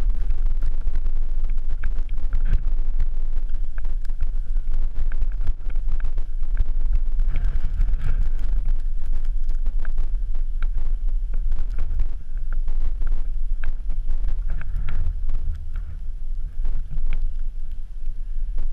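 Wind buffeting a GoPro's microphone in a strong, fluttering rumble, with scattered short crunches and clicks from ice axes and boots working into snow during a winter climb.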